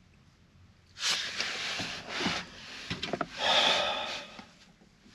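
Two long, breathy exhales from a person waking up in a sleeping bag, with a few small clicks between them.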